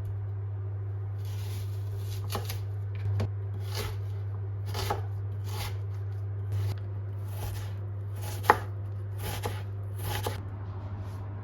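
Knife chopping food on a cutting board in irregular strokes, some short and sharp, some drawn out, with one louder knock about eight and a half seconds in. A steady low hum runs underneath.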